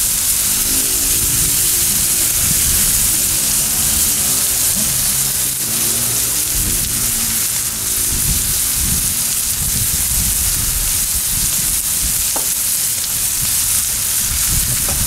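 Bison NY strip steaks searing in butter on a hot cast-iron sear plate over a charcoal kettle grill: a steady, loud sizzle.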